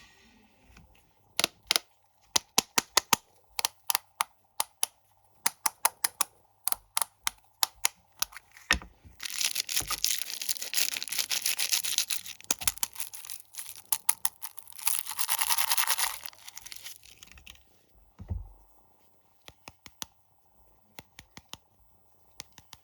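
Snack packaging being handled and torn open: a run of sharp, crisp crinkling clicks, then several seconds of continuous rustling and tearing, then a few scattered clicks near the end.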